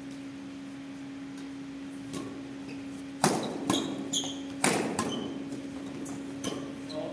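Rackets hitting a shuttlecock in a badminton rally: two sharp, loud smacks about three and four and a half seconds in, with lighter hits and brief shoe squeaks on the court between them. A steady low hum runs underneath.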